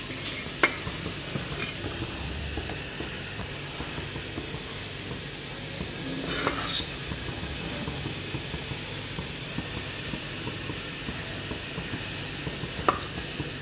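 A metal spoon clinks and scrapes against a stainless-steel idli plate as thick batter is spooned into its moulds. There are a few sharp clicks, and a longer scrape about halfway through, over a steady hiss.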